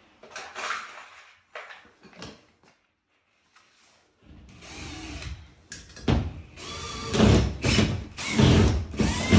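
Cordless drill-driver driving a drywall screw into a plasterboard patch. It starts after a few seconds of handling knocks and runs in repeated short bursts that get louder: the screw is not going in cleanly because the wrong bit is fitted.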